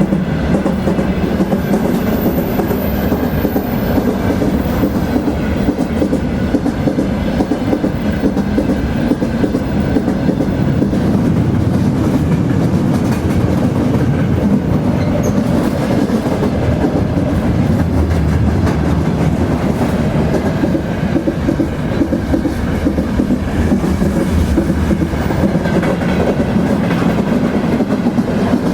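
Train rolling along the track: a steady, unbroken rumble of wheels on rail.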